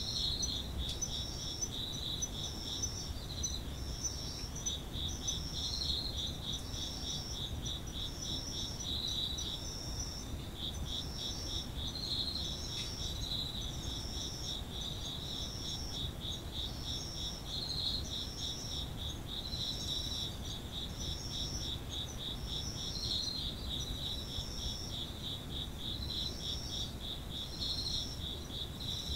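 Chorus of Japanese autumn singing insects. One kind keeps up a continuous fast-pulsed trill, and another repeats a short higher-pitched phrase about once a second.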